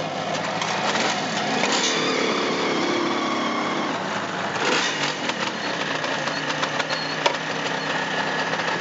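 Kawasaki 750 H2 motorcycles' two-stroke triple engines running at idle, with a sharp click about seven seconds in.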